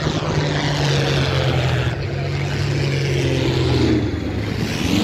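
Piston-engined propeller aircraft flying past, its engine note dropping in pitch as it goes by.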